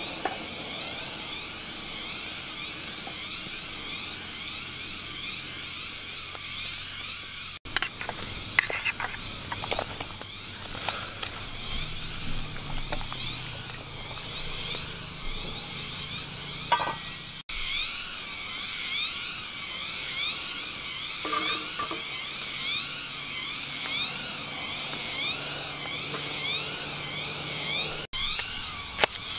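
Cicadas singing in a loud, steady, high-pitched chorus with a wavering, repeating pulse. A few light knocks come through, mostly in the middle stretch.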